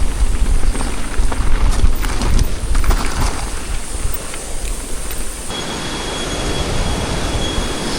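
Mountain bike riding over rough trail: wind rumbling on the helmet-camera microphone, with clicks and rattles from the bike. About five and a half seconds in it cuts abruptly to a steadier hiss with a faint thin high whine.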